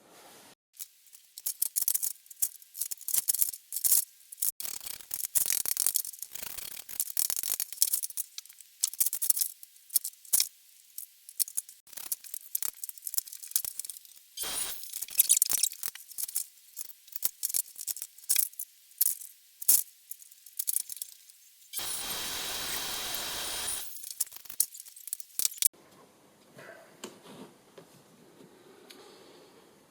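Workshop clean-up after laying plastic clip-together floor tiles: many quick, irregular clinks and clatters of small hard pieces being handled and dropped, then a steady hiss lasting about two seconds, about three-quarters of the way through.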